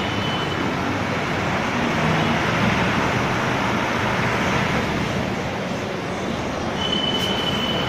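Steady rumble of engines and road traffic, with no distinct impacts. A thin, steady high tone sounds for about a second near the end.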